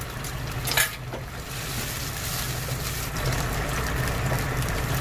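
Sauce in a wok, water over fried mince with tianmianjiang and doubanjiang, heating toward a simmer with a steady bubbling hiss that grows a little louder about two seconds in. A single sharp clink about a second in.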